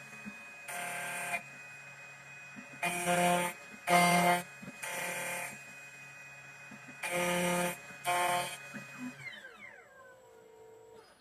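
2M2 Tank CNC key cutting machine running its automatic cutting calibration. A steady high whine is broken by six short buzzing motor moves of about half a second each, then the whine winds down with a falling pitch near the end.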